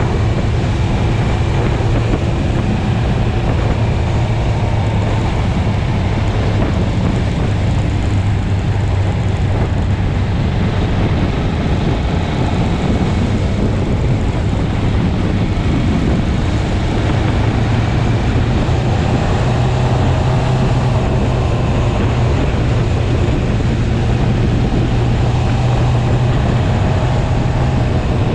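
Heavy wind noise buffeting the microphone over a 650cc sportbike engine running at a steady cruise, its note rising a little about two-thirds of the way in.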